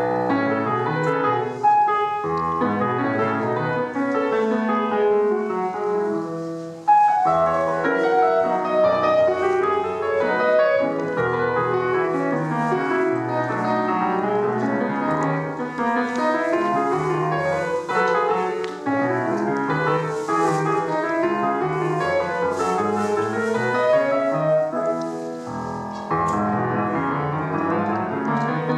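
Grand piano played solo, a lively Argentine folk dance tune (gato cuyano or cueca norteña) with dense, rapid chords and runs. About seven seconds in the playing briefly eases off, then a loud chord starts the next phrase.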